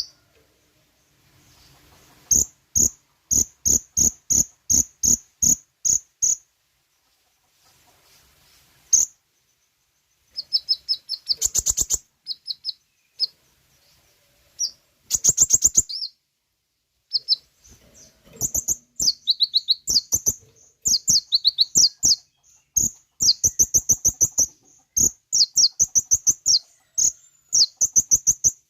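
Kolibri ninja (konin) sunbird song: runs of sharp, high, rapid chirps and short trills, several notes a second, broken by short pauses and growing busier and more varied in the second half.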